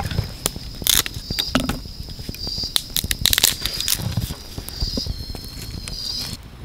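Irregular crackling and snapping of dry leaves and twigs, over a steady high insect drone. Both stop abruptly near the end.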